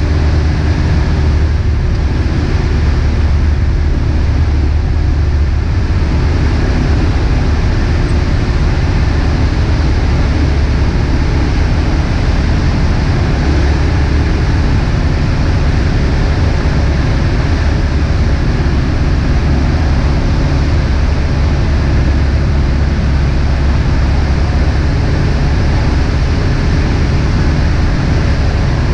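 Beechcraft Musketeer's single piston engine and propeller running steadily in flight, heard inside the cabin as a loud, even drone with no change in pitch or level.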